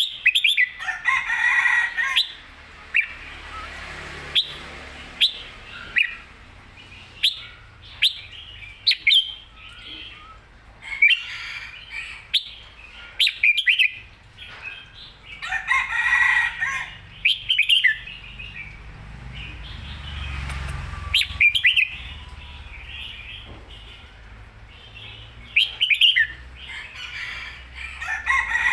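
Red-whiskered bulbul calling: short, sharp chirps repeated about once a second, with two longer, fuller calls, one about a second in and one around the middle.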